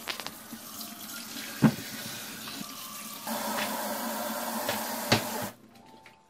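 Water from a pull-down spring-neck kitchen faucet running into a stainless steel sink over fruit being rinsed. It grows louder about three seconds in and is shut off about five and a half seconds in. Two sharp knocks sound, the louder about a second and a half in and the other just before the water stops.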